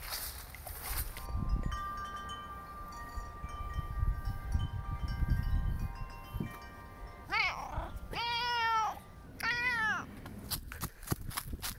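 A cat meowing three times, the middle meow the longest, a little past halfway through. Before the meows, several steady ringing tones overlap above a low rumbling noise, and a run of quick clicks follows them.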